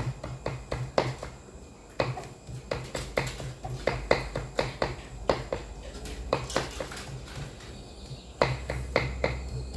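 A knife chopping and mincing raw buffalo meat for laab on a chopping board: a steady run of sharp knocks, about two or three a second, with a dull thud under each.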